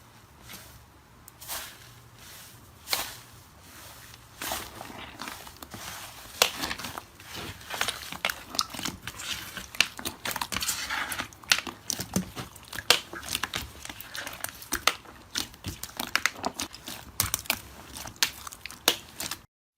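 Slime being squeezed and worked by hand, making irregular crackling clicks and pops. They are sparse at first and grow dense after about four seconds.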